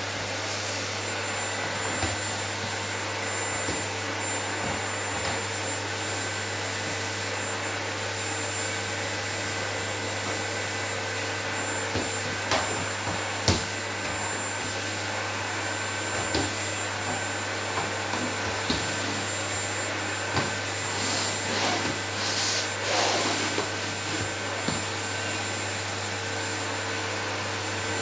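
Canister vacuum cleaner running steadily as its nozzle is worked over a wooden floor, with a steady whine in the noise. There are a few sharp knocks, the loudest about halfway through, and the sound turns briefly louder and rougher about three-quarters of the way in.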